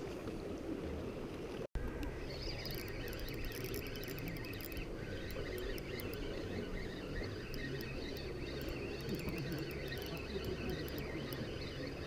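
Steady outdoor wind and sea noise with scattered light clicks and handling sounds from a spinning rod and reel being cranked during a lure retrieve; the clicks are thickest a few seconds in.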